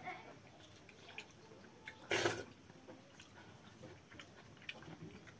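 Close-up sounds of eating pakhala (rice soaked in water) by hand: small wet clicks and smacks of fingers, mouth and watery rice, with one louder, brief wet noise about two seconds in.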